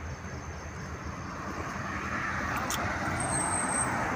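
Road traffic noise from a motor vehicle, an engine rumble with tyre noise that grows louder from about halfway through.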